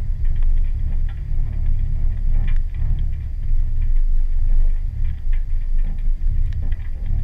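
Jeep Wrangler rolling slowly along a wet gravel trail: a steady low rumble of engine and tyres, with scattered light ticks and taps.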